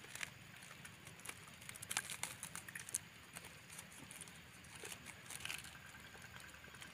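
Faint, scattered crinkling and clicking of small plastic instant-noodle seasoning sachets being torn open and squeezed out.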